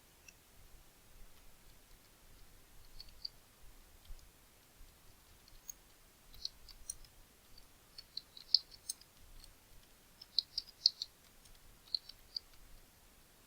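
Faint, irregular clicking of a computer keyboard and mouse, sparse at first and coming in quicker runs of taps in the second half.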